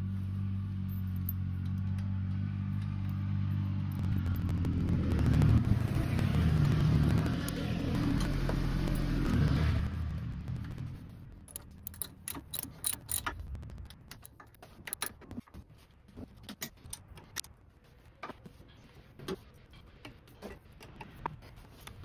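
An engine runs steadily for about the first ten seconds, getting louder in the middle before fading out. After it, a wrench clicks in short, irregular runs as the front axle housing bolts are tightened.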